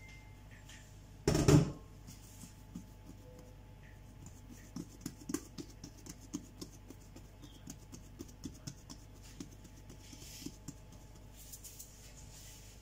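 Hands pressing and patting risen bread dough flat on a floured granite countertop, knocking the air out of it: a run of soft, uneven pats and presses. One loud thump comes about a second and a half in.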